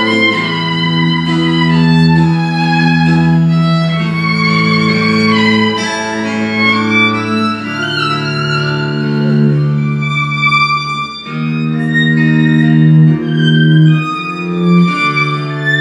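Acoustic string band playing an instrumental passage, the fiddle leading with long held notes over a low bass line.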